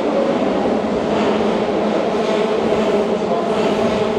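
Keihan 6000 series electric train pulling into the station, running with a steady whine over a rumbling roll, with a hiss that swells about once a second as it slows on approach.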